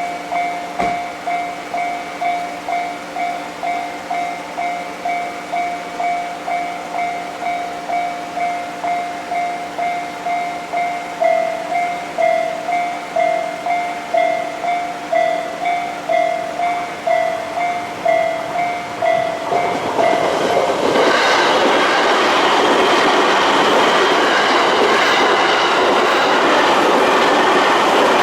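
Japanese railroad crossing alarm ringing its repeated electronic ding, about one and a half strikes a second, the pattern turning louder and uneven about eleven seconds in. About twenty seconds in a JR Uchibo Line train passes over the crossing with loud wheel clatter, drowning out the alarm.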